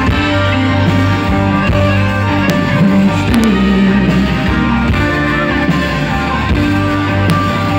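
Live band playing an instrumental passage with no vocals, its chords held steady.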